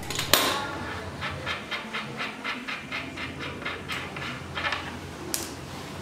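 Rapid light metallic clicking, about five clicks a second for some four seconds, from the front drum brake's adjuster being worked by hand as the brake is taken apart. A sharper click opens it and another comes near the end.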